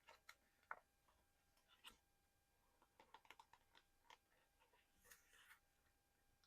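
Fingers tapping and handling small collectible objects for ASMR: scattered soft clicks and taps, a quick run of clicks about three seconds in, and a brief rustle about five seconds in.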